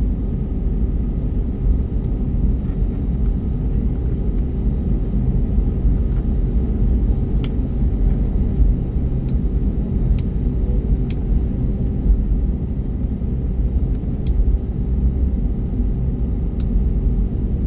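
Cabin noise of an Airbus A321neo taxiing, heard from a window seat over the wing: a steady low rumble from its CFM LEAP-1A engines at taxi power, with a steady hum and a few light clicks in the second half.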